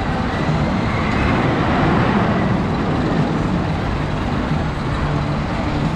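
Steel roller coaster cars running along their track, a steady rolling rail noise that swells about a second in.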